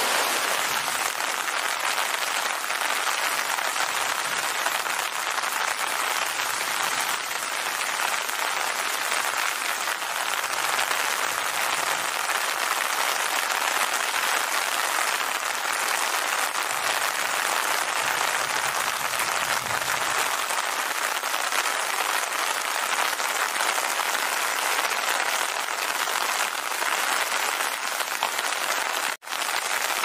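Steady rain, a dense, even patter and hiss. It cuts out for an instant about a second before the end.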